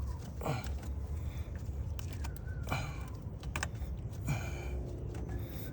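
Scattered soft clicks and rustles of hands handling hose clamps on the heater core lines, over a low steady rumble.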